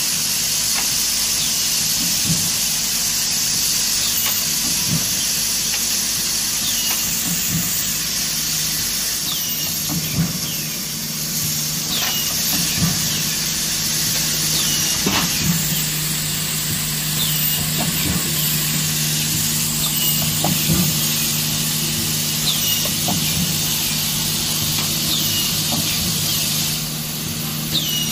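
Collated drywall screw assembly machine running: a steady hiss and a low hum, with a short clack and a brief high squeak every one to three seconds as it cycles.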